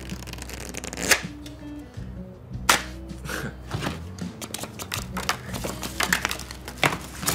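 Light background music with a series of sharp snaps from playing cards being flicked and dealt, the loudest about a second in and again near three seconds.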